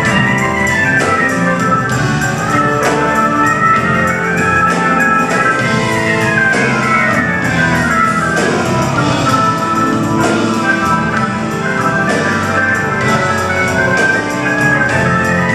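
Live rock band playing an instrumental passage: drums, congas, electric guitar and keyboards, with melody lines rising and falling over the band.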